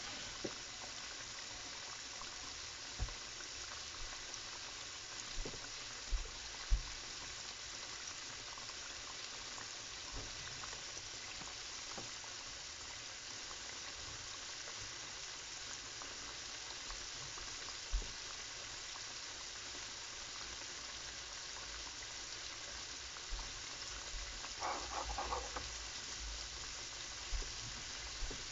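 Flour-dredged chicken pieces deep-frying in a pan of hot oil: a steady sizzle, with a few short louder pops scattered through.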